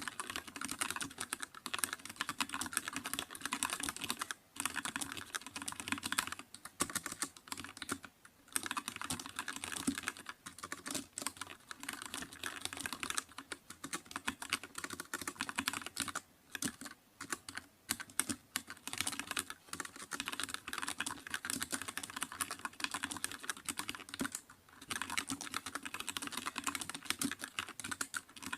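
Computer keyboard being typed on: a fast, dense run of keystroke clicks, broken by a few short pauses.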